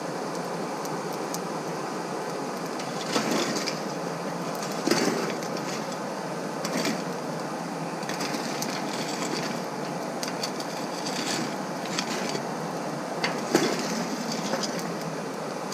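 Steady rush of a hair dryer blowing air at low pressure into a coal forge fire, with a few short, louder bursts of noise scattered through it.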